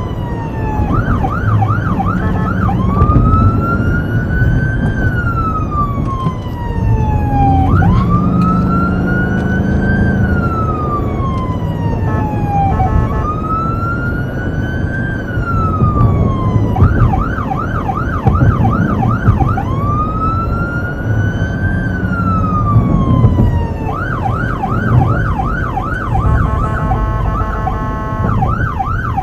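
Electronic emergency-vehicle siren on a fire battalion chief's pickup running code 3, heard from inside the cab. It is mostly a slow wail rising and falling every few seconds, switched three times to a fast yelp and once, near the end, to a rapid warbling tone, over a constant low engine and road rumble.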